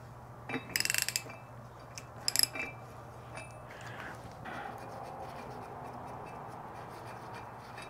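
Small metal hardware and a hand tool clinking as a jet outboard's pump parts are taken apart: a short rattle about a second in and another pair of clinks about two and a half seconds in. After that only a faint steady hum remains.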